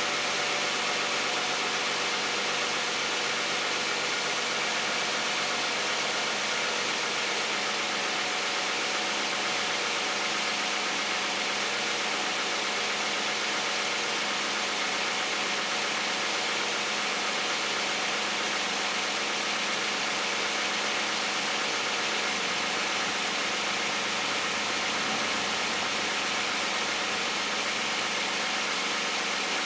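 Toyota 2GR-FE 3.5-litre V6 of a 2010 Camry idling steadily, still warming up about a minute and a half after a cold start, heard close to the engine with the hood open. It is a high-mileage engine at 152,000 miles.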